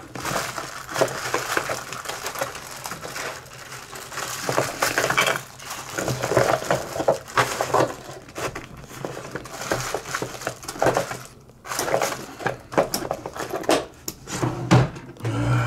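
Irregular clinks, taps and rustles of small tools and parts being handled on a workbench.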